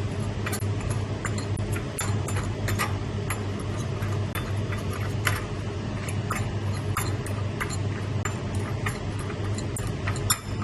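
Stirring utensil clicking irregularly against a bowl as dry ground spices are mixed together, over a steady low hum.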